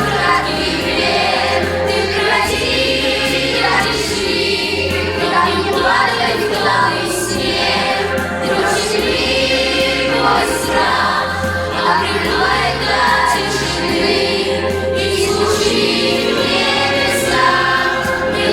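Music: a song with choir singing over instrumental backing and a steady bass line.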